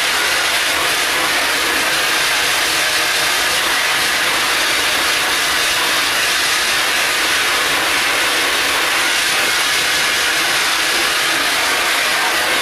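Water jet from a hose spray nozzle hitting a silkscreen's mesh, a loud, steady hiss of spray as the stencil is washed out of the screen.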